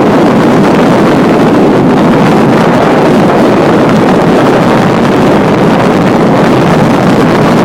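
Strong wind buffeting the microphone: loud, steady wind noise.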